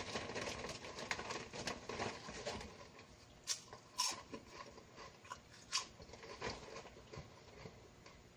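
A person chewing Lay's potato chips: crisp crunching, dense for the first few seconds, then thinning to a few separate crunches.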